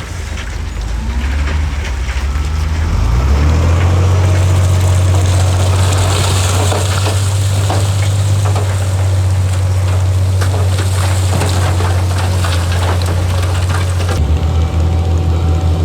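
Heavy diesel engine of earthmoving machinery running loud and steady, its pitch rising about three seconds in and then holding as if under load. Scattered clattering and crackling sit over the engine.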